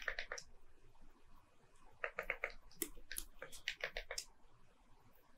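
Computer keyboard keys clicking in short quick runs: a few presses at the start, then a run of about five around two seconds in and more clusters near three and four seconds, each a faint sharp tap.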